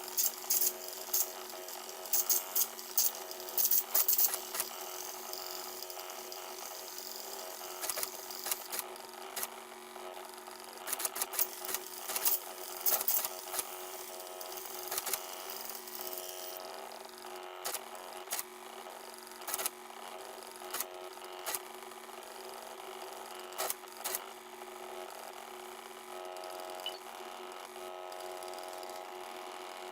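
A mini Arduino CNC drawing machine running: its motors give a steady whine, broken by quick bursts of clicking and rattling as it moves, busiest in the first half.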